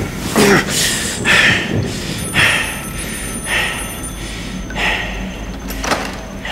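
A man breathing hard in gasps, about one a second, the first with a short voiced moan.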